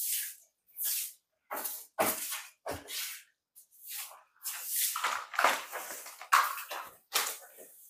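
A straw broom sweeping a tiled floor in short swishing strokes, roughly one or two a second, with a couple of duller knocks about two seconds in. Near the end, a flat mop is wiped across the tiles.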